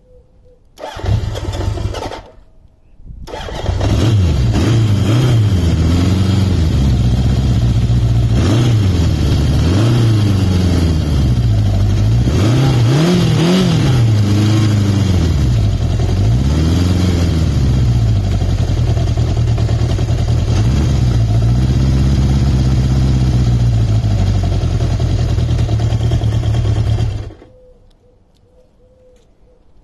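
Honda CB750 Four K2's air-cooled inline-four engine. A short first attempt comes about a second in, then it catches and runs about three seconds in. It is revved up and down several times before it cuts off suddenly near the end. The bike is freshly restored and its carburettors are not yet perfectly tuned.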